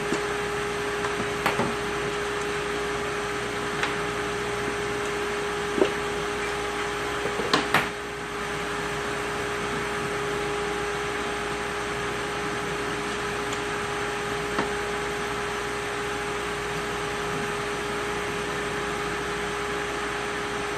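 A steady background hum with a few sharp metallic clicks and knocks, most of them in a cluster about eight seconds in. The knocks come from a piston and connecting rod being taken out of the engine block and the rod cap being handled and refitted during an engine teardown.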